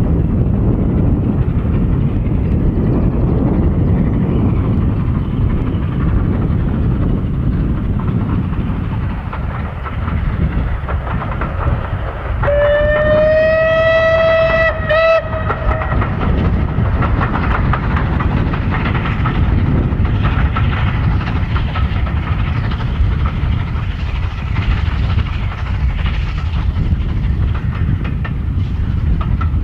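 Bulleid West Country class 4-6-2 steam locomotive no.34070 Manston working hard with a train, its exhaust a heavy, steady low rumble. About halfway through it sounds its whistle: one long note that rises slightly at first, then a short second toot.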